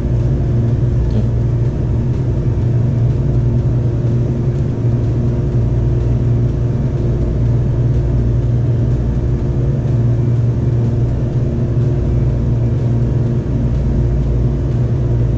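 Steady low mechanical hum at a constant pitch, running without change.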